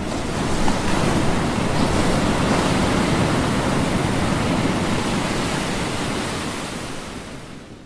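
A steady rushing noise like surf or wind, with no tones in it. It swells up at the start and fades out near the end.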